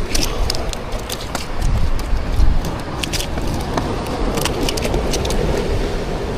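Wind rumbling on the microphone over the beach surf, with many scattered sharp clicks and crackles.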